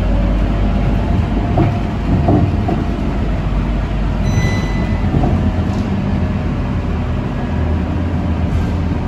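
Scania K230UB city bus running along the road, heard from inside the passenger cabin: a steady low rumble from its rear-mounted five-cylinder diesel, with road noise and small rattles. A short high beep sounds about four seconds in.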